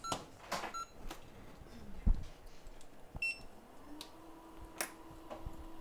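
Short electronic beeps from the microsoldering bench equipment, with a few light clicks. About four seconds in, a low hum glides up and then holds steady.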